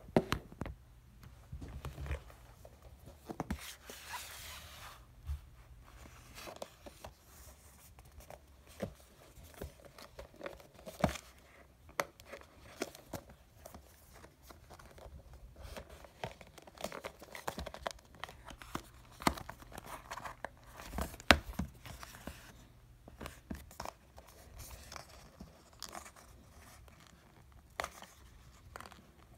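Cardboard phone packaging being handled and opened by hand: paper tearing and crinkling among scattered taps and knocks against the box, with a longer tearing sound about four seconds in.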